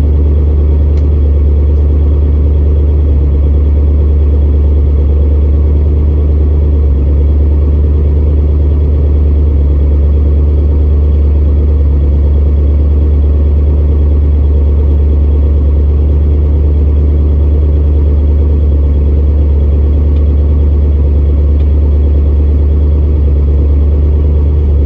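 Old pickup truck engine idling steadily with a deep, even rumble.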